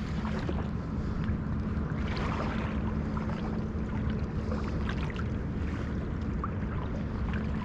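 Steady rush of flowing creek water with a low hum under it and scattered small ticks and splashes.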